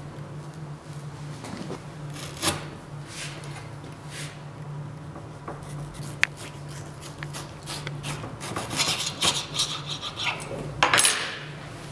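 Table knife scraping butter across slices of bread, then a knife sawing down through a tomato held on a chopping board's pins, with the blade scraping and tapping the board; the strokes grow louder and closer together in the last few seconds.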